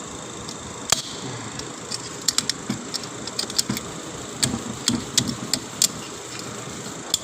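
Small metal automatic-transmission parts clinking and clicking as they are handled and fitted: about fifteen sharp, irregular clicks, some in quick pairs, over a steady hiss.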